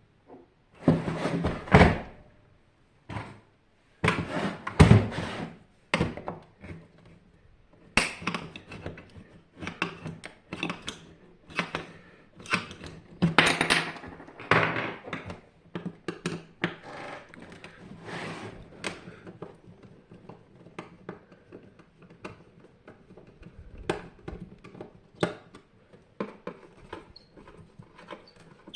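Irregular knocks, thunks and clatter of tools and parts being handled while a Hajdu AF-U-5 water heater is taken apart, loudest in the first few seconds.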